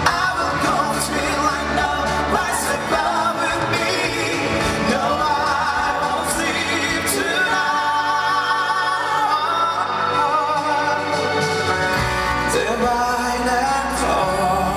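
A man singing a song over full band backing; the deep bass drops away for a few seconds in the middle and comes back in a few seconds before the end.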